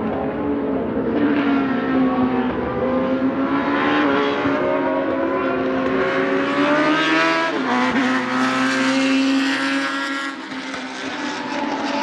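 Ford Cosworth DFL V8 of a Tiga GC289 Group C2 racing car running at speed on track. The engine note eases down, then climbs for several seconds, breaks off sharply about eight seconds in, and dips near the end.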